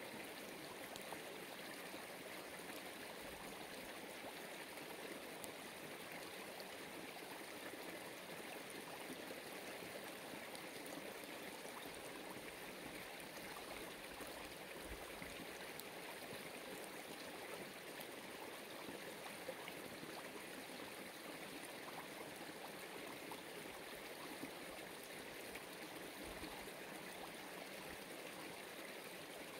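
Running water from a small stream: a faint, steady, even rush that doesn't change.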